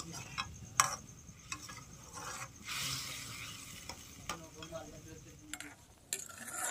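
Metal ladle stirring karonda berries frying in a kadai, clicking and knocking against the pan a few times, with a sizzle of hot oil that swells around three seconds in.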